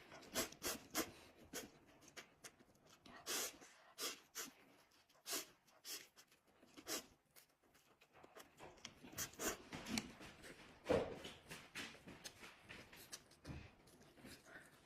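Close-miked eating sounds of a person eating soaked instant noodles: irregular slurps and chewing, the loudest a sharp burst near the eleven-second mark.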